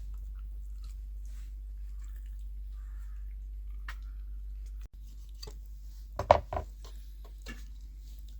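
Cooking handling sounds: scattered small clicks and knocks, with a louder cluster of knocks a little after six seconds, over a steady low hum.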